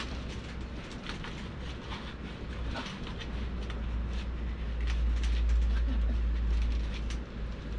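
Low wind rumble that grows stronger about halfway through, with scattered small clicks and rustles of hands working a plastic cup around a garden hose.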